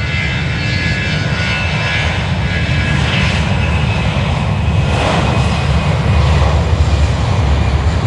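Jet airliner engines running: a steady deep rumble with a thin high whine, growing gradually louder.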